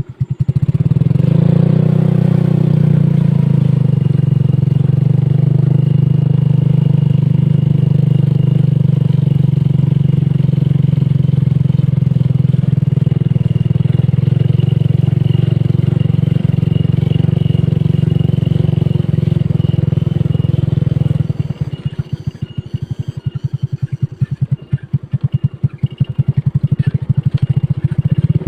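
Motorcycle engine running steadily under way. About three-quarters of the way through it drops to a slower, pulsing beat, each firing stroke heard separately, as if easing off or idling.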